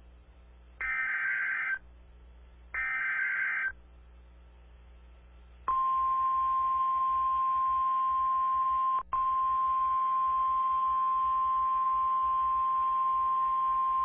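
NOAA Weather Radio Specific Area Message Encoding (SAME) alert header: two one-second bursts of warbling data tones about two seconds apart. After a short pause comes the steady single-pitch 1050 Hz warning alarm tone, with a momentary dropout about three seconds after it starts. Together they signal that a new warning message is about to be read.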